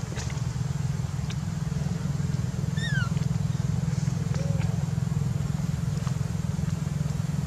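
A baby macaque gives one short, high squeak that falls in pitch, about three seconds in. A steady low rumble runs underneath it.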